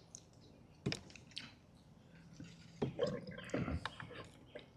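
Small handling sounds from a motorcycle's coolant filling: a sharp click about a second in, then a run of small clicks, knocks and wet squishing sounds in the second half.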